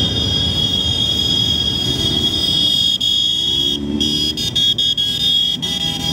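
A column of motorcycles riding past at low speed, their engines rumbling together. A steady shrill tone sounds over them, dropping out briefly about four seconds in.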